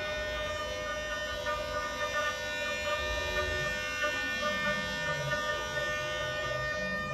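Woodwind and live laptop electronics playing together: a long, steady held chord of sustained tones, with a low wavering line coming in about halfway through.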